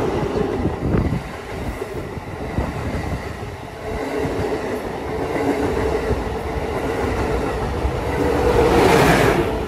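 Amtrak Acela Express electric high-speed train passing close alongside at speed: a continuous rush of wheel and air noise with a steady hum underneath, swelling loudest near the end.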